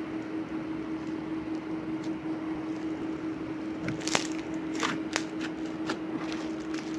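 Crunchy slime packed with styrofoam beads crackling and popping as fingers press and poke into it: a few sharp crackles starting about four seconds in, over a steady low hum.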